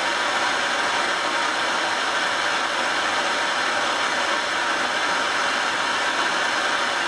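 Gas torch burning with a steady hiss, heating a steel joint to red heat for silver soldering.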